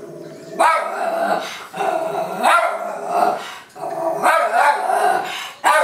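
A Lhasa Apso barking repeatedly in excitement at puppies on the television, a series of loud barks about a second apart.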